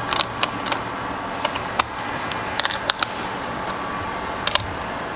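Scattered small metallic clicks and ticks of a hex wrench turning a bicycle seat-post bracket bolt, irregular, with a couple of quick pairs, over steady room hiss.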